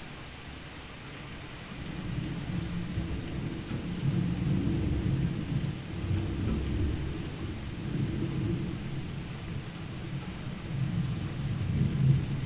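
Long rolling thunder over steady rain: a low rumble builds about two seconds in, swells and ebbs, and peaks again near the end.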